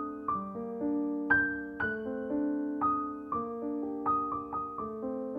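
Background music: a gentle piano or electric-piano melody, notes struck about two a second and left to ring over held chords.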